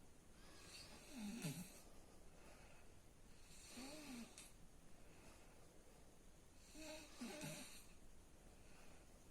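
Snoring during sleep: three soft snores about three seconds apart, each a short breath with a wavering pitched rattle and a breathy hiss.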